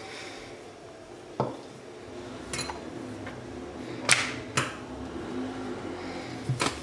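Wooden rolling pin working paratha dough thin on a hard countertop, with a handful of sharp knocks and clinks, the loudest about four seconds in.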